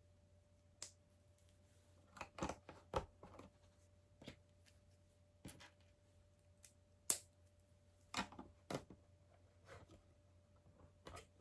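Plastic LEGO bricks being handled and pressed together: scattered short sharp clicks and taps, with a quick cluster about two to three seconds in and the sharpest click about seven seconds in.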